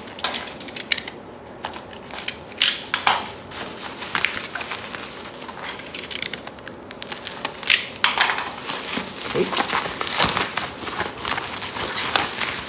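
Bubble wrap crinkling and crackling as it is handled and pulled away by hand, in an irregular run of sharp crackles and rustles.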